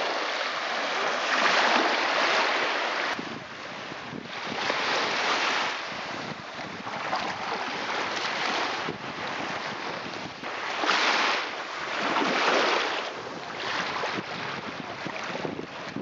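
Small Black Sea waves washing in over sand, the surf swelling and ebbing every couple of seconds, with wind on the microphone.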